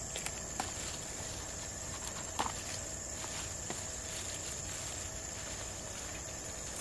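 Steady, high-pitched insect drone in a garden. Over it come a few soft snaps and rustles as red leaf lettuce is picked by hand, the clearest about two and a half seconds in.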